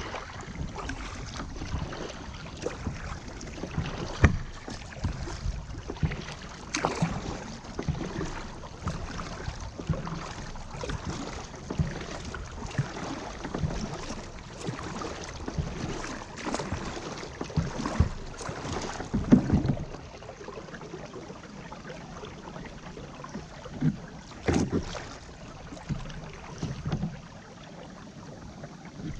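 Kayak paddling on calm water: paddle blades dipping and splashing at an irregular pace, with drips and occasional sharper knocks, the loudest about 4, 19 and 25 seconds in.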